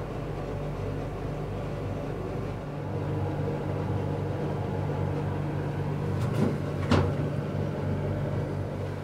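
Steady low mechanical hum inside a moving Ferris wheel gondola. Near the end come two short knocks less than a second apart, the second one louder.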